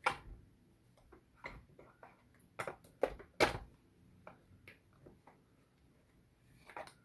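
Irregular clicks and knocks of small plastic makeup containers being picked up, moved and set down, with a cluster of louder knocks a few seconds in.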